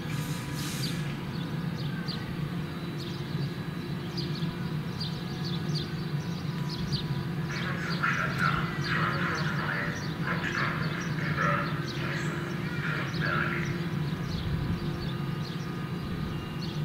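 Bombardier Talent 2 (DB class 442) electric multiple unit standing at the platform, humming steadily. Midway through, a run of short, irregular, higher-pitched sounds is heard over the hum.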